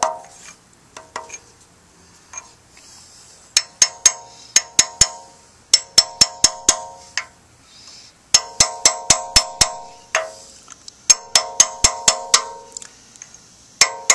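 Hammer tapping a metal tool held against the edge of a one-piece rear main seal, driving the seal into the back of a Ford 5.0 (302) V8 block. Light, ringing metallic taps come about five a second, in bursts of six to eight with short pauses between, as the seal is walked around and seated.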